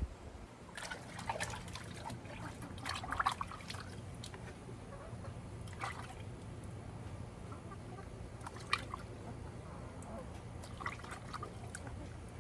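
Liquid splashing and dripping in a few short spells, with a steady low hum underneath.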